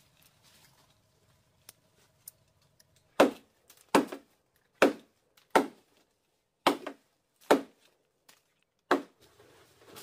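Seven chopping strokes of a blade biting into wood, about one a second, starting about three seconds in.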